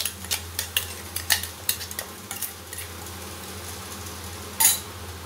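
A steel spoon and bowl clinking and scraping against an aluminium pan as ground spice powder is stirred into hot oil, over a faint steady sizzle. The clicks come quickly at first and then thin out, with one sharp clink near the end.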